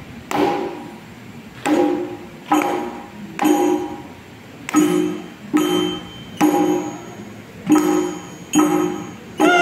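Mizhavu, the large copper pot drums of Koodiyattam, struck in a slow, even beat of single strokes about one every 0.8 seconds, each stroke ringing briefly with a pitch.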